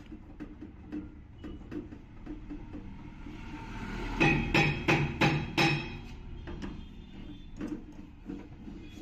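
A hammer striking metal: about five quick, ringing blows about four seconds in, with lighter tapping and clinking of tools before and after.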